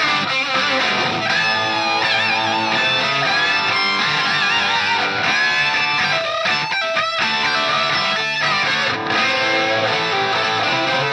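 Overdriven electric guitar solo played through a Valvetech Suplex 50-watt valve amp with two EL34s, its boost cascading channel 1 into channel 2 for more gain. A second guitar plays rhythm underneath, and the lead holds notes with vibrato.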